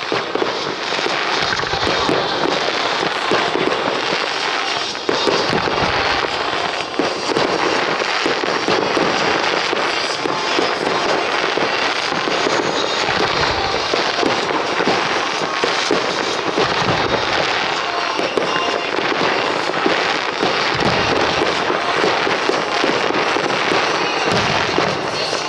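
Starmine fireworks barrage: many shells launching and bursting in rapid succession, an unbroken stream of overlapping pops and crackles with several deeper booms from bigger bursts.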